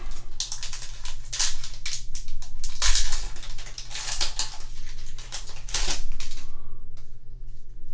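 Foil wrapper of a Yu-Gi-Oh booster pack crinkling and tearing as it is ripped open by hand and the cards are pulled out. The crinkling stops about a second before the end.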